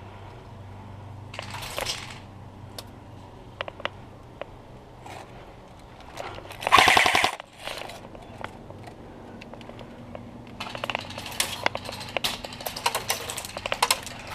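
Airsoft gun firing: scattered single clicking shots, then a short rapid full-auto burst about seven seconds in, the loudest sound. Near the end comes a longer stretch of rapid clicking mixed with rustling.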